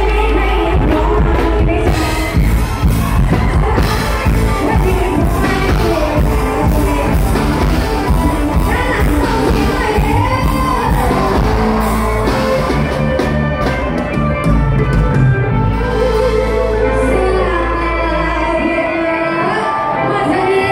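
Live band music played loud through a stage PA, with a female singer over a steady drum beat and heavy bass; the bass drops out near the end.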